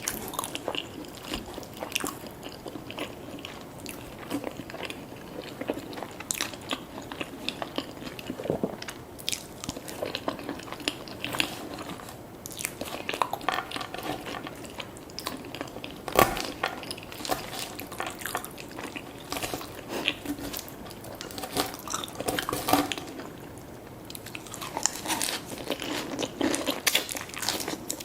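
Close-up eating sounds: crunchy bites and chewing of fast food, with many short sharp crunches throughout and one louder crunch about halfway through.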